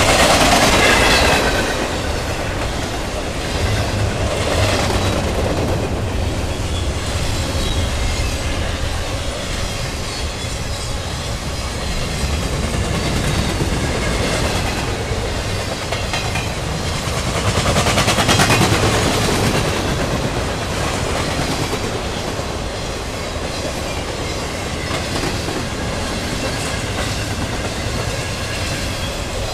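Intermodal freight train rolling past, its cars' steel wheels clacking and rumbling over the rails. The sound is steady, with louder swells about a second in and again around 18 seconds.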